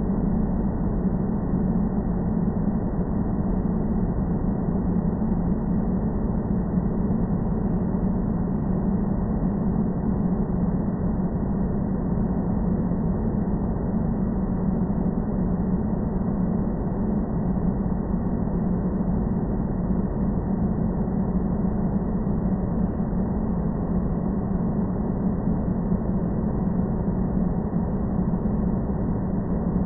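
Airplane ambient noise: a steady drone with a strong low hum and a wash of noise above it, unchanging throughout.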